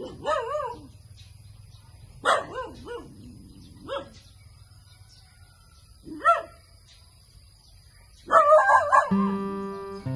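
A dog barking and yelping about five times with pauses between, the last bark the loudest. Acoustic guitar music comes in near the end.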